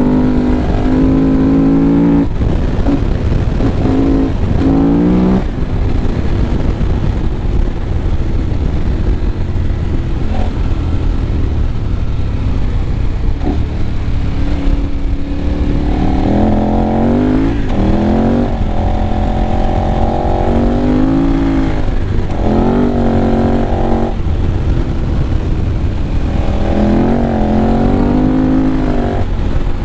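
KTM 1190 Adventure R's V-twin engine, running through an Akrapovic muffler with its baffles removed, revving up and easing off again and again as the bike is ridden, over a steady low rumble of wind and ground noise.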